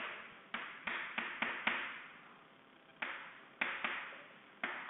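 Chalk writing on a chalkboard: a run of short taps and scratching strokes, about ten in all, each fading quickly, with a pause of about a second in the middle.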